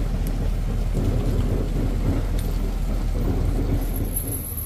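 Heavy vehicle engine running steadily with a low rumble. A brief faint high whine near the end.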